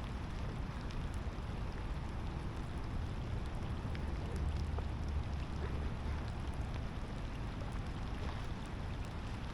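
Light rain falling, a steady hiss with scattered faint drop ticks, over a low rumble.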